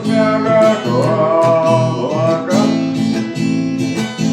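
Acoustic guitar strumming chords, with a sung note held and wavering over it for the first two and a half seconds before the voice drops out and the guitar plays on alone.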